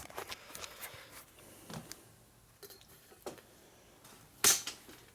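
Light clicks and taps of small parts being handled, with one louder sharp click about four and a half seconds in.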